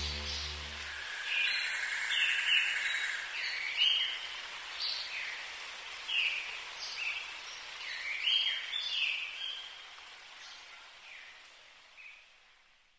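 House sparrow chirping over and over in short, downward-sweeping chirps, with a faint steady hiss behind. The chirps fade out toward the end. A music track ends in the first second.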